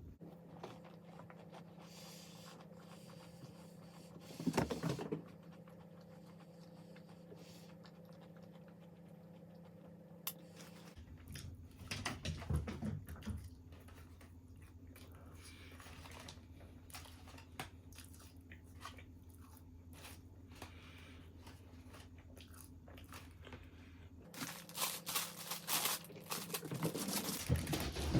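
Close-miked eating: food being bitten and chewed, with short bursts of crunching and rustling at a few points, busiest near the end, over a low steady hum.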